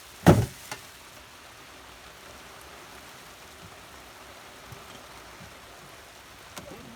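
A single loud thump near the start, then steady rain falling with an even hiss.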